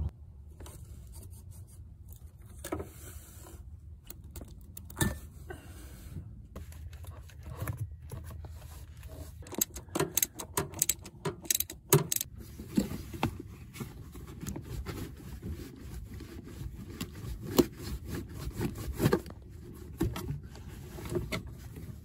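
Socket wrench on an extension turning the screw of the air intake tube's hose clamp, with scattered metal clicks and rattles, then scraping and rubbing as the rubber intake tube is worked off the throttle body.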